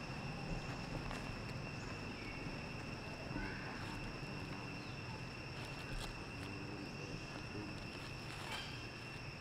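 Steady high-pitched insect drone, one unbroken tone with a fainter higher overtone, over scattered soft crackles of dry leaf litter and a few faint short chirps.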